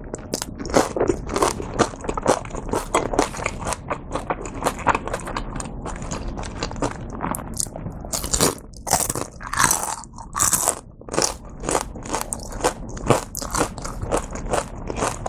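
Close-miked eating of a crispy fried shrimp dumpling: crunchy bites and steady chewing, a quick run of crackles several times a second.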